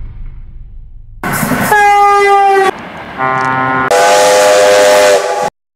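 Train whistle blowing two loud chord-like blasts: a first blast, a short gap, then a longer second blast that swells louder and sags slightly in pitch before it cuts off suddenly.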